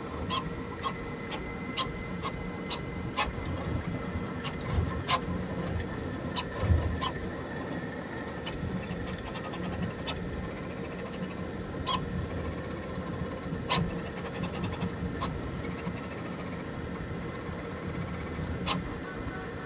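Prusa Core One 3D printer running: a steady motor and fan hum with held tones, broken by scattered sharp clicks, roughly one a second at first and sparser later.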